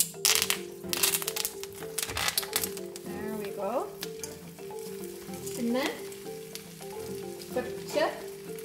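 Oil sizzling and crackling in a hot appam pan lined with a banana leaf as a fish steak is laid on it, loudest in the first couple of seconds and then settling to a steady hiss. Background music with a stepping melody and several rising swoops plays over it.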